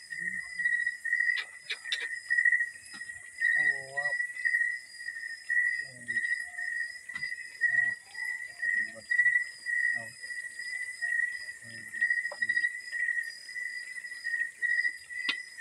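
Crickets chirping in a continuous, rapidly pulsing high trill, with a second, fainter, higher insect tone running alongside.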